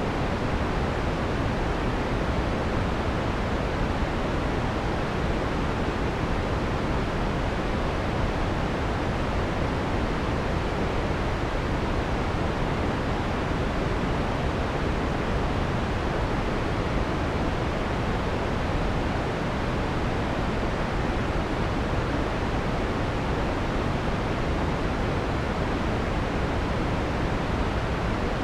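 Steady synthesized white noise with the harsh treble filtered off: an even, unbroken hiss that sounds softer and darker than raw white noise.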